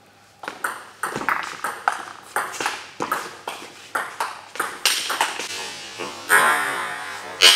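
Table tennis rally: the ball clicks sharply off the bats and bounces on the Stiga table in quick alternation, several hits a second. Near the end the clicks give way to a louder burst of noise as the point ends.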